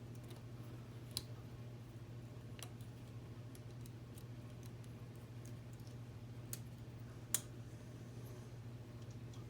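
Plastic K'nex pieces clicking as they are snapped onto connectors: a few separate sharp clicks, the loudest near the end, over a steady low hum.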